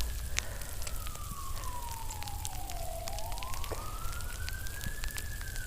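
A siren wailing slowly: its pitch falls over about three seconds, rises again and starts to fall near the end. Underneath, a steady crackle of many small ticks from freezing rain and ice pellets hitting.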